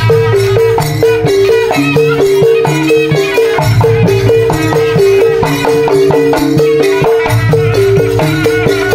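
Madurese saronen ensemble playing live: a saronen shawm melody over a barrel drum, large hanging gongs and small hand-held gongs, with a quick two-note figure repeating.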